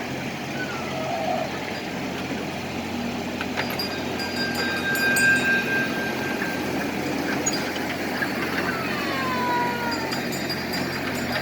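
Children's ride train running, with a steady rumble and hum. About four seconds in come a few clicks and a high tone held for about two seconds.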